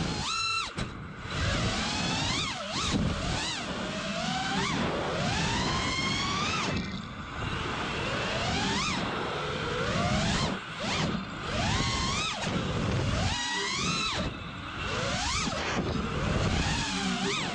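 FPV quadcopter's brushless motors and propellers whining through an onboard camera, the pitch sweeping up and dropping back every second or two as the throttle is punched and cut, over wind rush. The quad has a bad motor that, per the owner, caused a weird noise and vibration on this flight.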